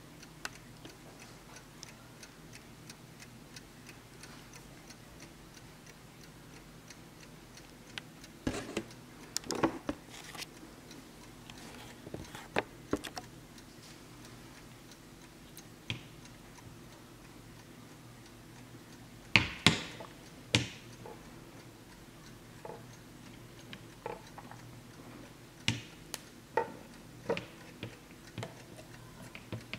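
Warmink Wuba mantel clock ticking steadily, with louder irregular knocks and clicks from the clock being handled; the loudest knocks come a little past the middle, and more clicks come near the end as the glass front door is opened.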